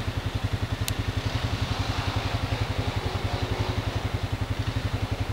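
ATV engine idling, a steady, even low putter.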